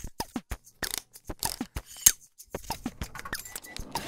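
Animated title sound effects: a rapid, irregular series of sharp clicks and ticks mixed with short blips that slide down in pitch.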